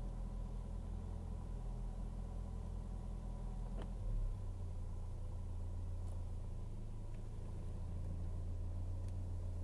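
Mercedes W123 230CE four-cylinder petrol engine idling steadily, heard from inside the cabin as a low hum, with a single sharp click about four seconds in.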